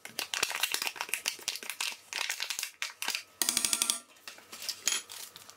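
Crinkling and light clicking from a cream cheese pack and spoon being handled as cream cheese is scooped into a stainless steel mixer bowl, with a denser patch of crackling about three and a half seconds in.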